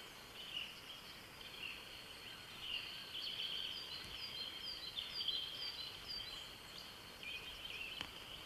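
Dawn chorus of several songbirds singing at once, faint, with a run of short, repeated downward-sliding high notes through the middle.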